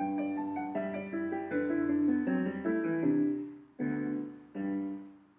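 Short app jingle on a piano-like keyboard, starting abruptly with a quick run of notes for about three seconds, then two separate chords that ring and fade near the end.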